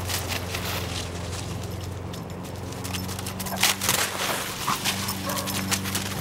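Dry fallen leaves crunching and rustling underfoot in quick irregular bursts that pick up about halfway through, over a steady low hum.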